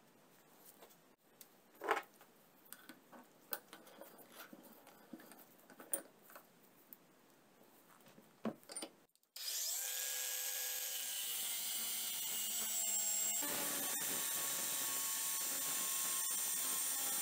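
Light clicks and knocks of a steel adjustable wrench being handled and clamped in a bench vise, then, about nine seconds in, an angle grinder's cut-off disc starts suddenly and runs steadily, loud, cutting into the steel wrench handle.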